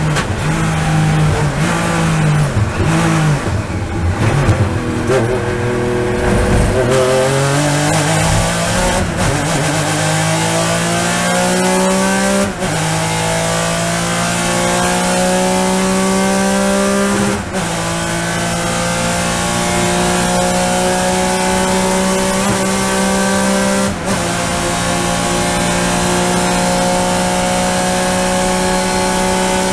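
Onboard sound of a Porsche race car's Fearnsport-built flat-six. In the first few seconds it comes off the throttle and changes down, with the note falling and unsteady. Then it accelerates hard up through the gears, the pitch rising steadily, with three quick upshifts about five to six seconds apart.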